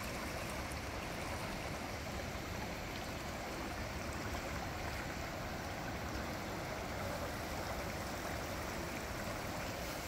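Mountain stream in spate, swollen and muddy after heavy rain, rushing steadily past rocks and a fallen log at its bank.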